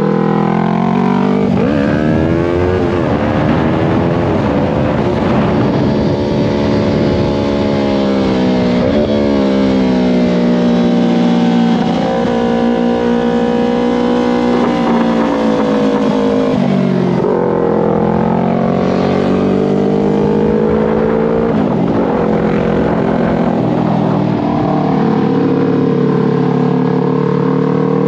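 Yamaha R3's parallel-twin engine ridden hard on track: revs climb and drop sharply at several upshifts, then fall away as the bike slows and climb again.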